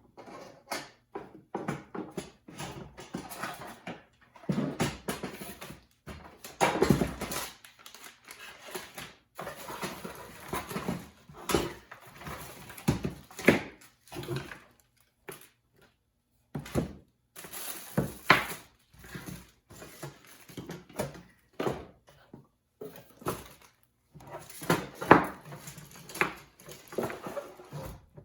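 Irregular clicks, knocks and rustling of hands handling small electrical parts and wire, with several short silent gaps.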